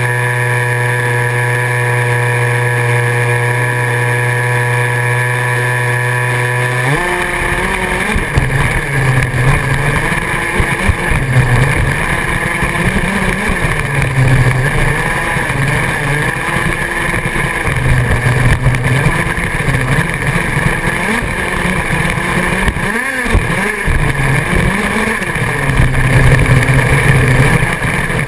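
Radio-controlled off-road buggy's motor, heard from a camera on the car: a steady even hum for about seven seconds, then rising and falling in pitch over a rough rumble as the buggy drives over the dirt track.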